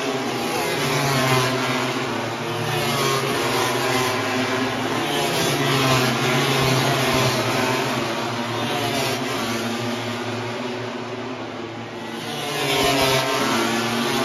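Racing motorcycles passing at speed down the straight, their engines at high revs, pitch rising and falling again and again.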